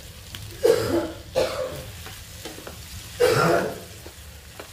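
Mutton pieces sizzling in a frying pan after a splash of water, stirred with a slotted spatula in three loud scraping strokes about a second in, a moment later, and again near the end.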